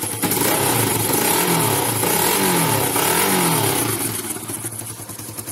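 Yamaha FZ-S motorcycle's single-cylinder engine revved up about three times, each rev falling away, then settling back to idle near the end. It has an ugly, very bad exhaust note because the silencer is cracked at its weld and leaks exhaust.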